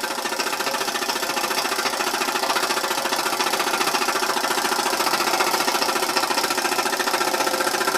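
Stuart ST model steam engine running steadily with a rapid, even beat, together with the clatter of the model helicopter screw it drives. The engine is working hard to turn the new, still-stiff model.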